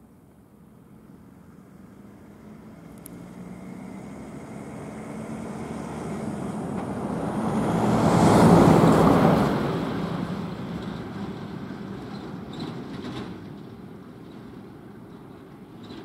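A road vehicle driving past, its engine and tyre noise swelling to a peak about eight seconds in, then fading away.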